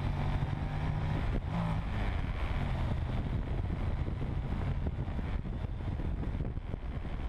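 Honda NC700X's parallel-twin engine running steadily while riding, heard from a tank-mounted camera. It eases off about a second in, and wind rushing over the microphone takes over.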